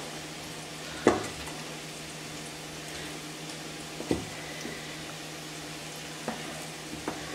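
A hand mixing cauliflower florets in a thick spiced batter in a stainless steel bowl: wet squishing, with a few knocks against the bowl, the loudest about a second in and another about four seconds in. A steady hiss and low hum run underneath.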